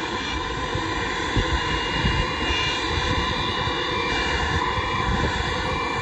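Antonov An-124-100's four Progress D-18T turbofan engines whining steadily at taxi power. Wind buffets the microphone with a gusty low rumble.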